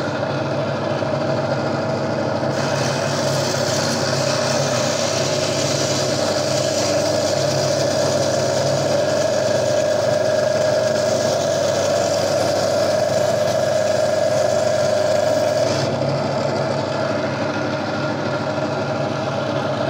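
Gryphon diamond bandsaw running with a steady hum. From about two and a half seconds in until about sixteen seconds in, a harsher hiss rides on top as the diamond blade cuts through the stony skeleton of a Lobophyllia coral.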